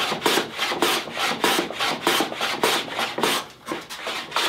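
Hand plane taking repeated short strokes across the end of a board clamped in a mitre planing jig, cutting a 45-degree mitre, with rasping scrapes about two a second. The strokes weaken in the last second.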